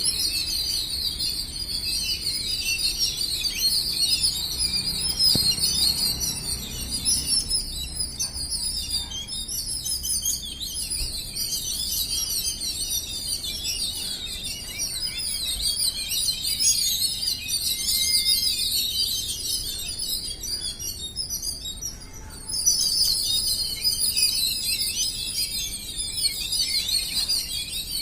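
A flock of house sparrows chirping continuously, many high calls overlapping, with a brief lull about three-quarters of the way through.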